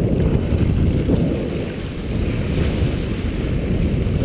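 Wind buffeting the microphone in a steady low rumble, over small sea waves washing against the rock ledge.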